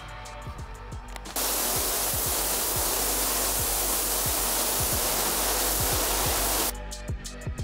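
Compressed-air paint spray gun spraying paint: a loud, even hiss that starts about a second in and cuts off suddenly about five seconds later, over background music with a steady beat.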